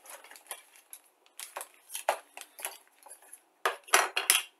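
Plastic model-kit parts trees clicking and clattering as they are handled and pulled from a plastic bag, with the loudest clatter near the end.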